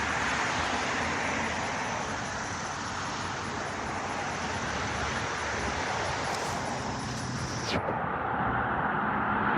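Steady road traffic noise from passing cars, with a short click near the end.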